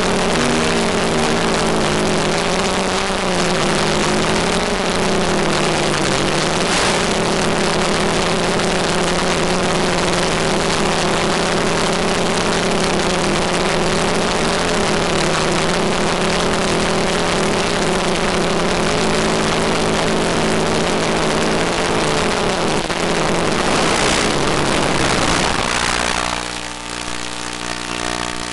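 Small electric multicopter (ETFD2 flying disc) motors and propellers running in flight, a steady multi-toned whir with a hiss over it, its pitch wavering slightly with throttle. About 26 s in, it drops in level and settles to a lower, steadier hum as the craft lands and the throttle goes to idle.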